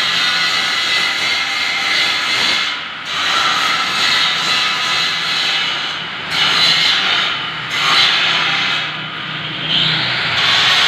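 Angle grinder grinding steel, a loud hissing grind broken by brief dips every few seconds as the disc comes off the metal and goes back on.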